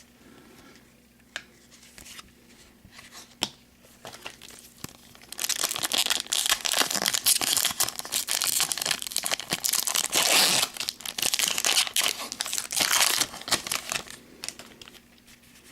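A few light clicks of cards being handled, then, about five seconds in, a trading card pack's wrapper being torn open and crinkled for about eight seconds.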